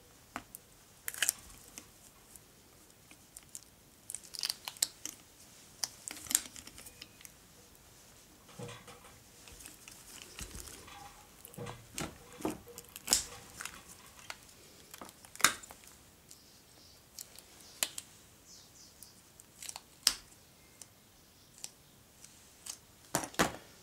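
Scattered sharp clicks, taps and knocks of a hand tool and gloved hands working on a small pneumatic cart tyre during a plug repair with a vulcanizing strip, irregular and spread over the whole stretch.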